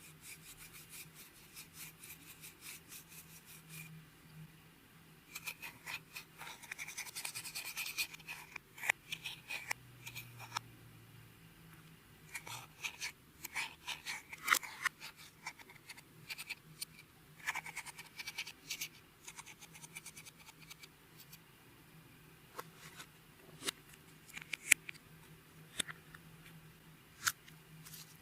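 Clear slime being worked by hand, with irregular sticky clicks and crackling pops, thicker in a few clusters and sparser in between.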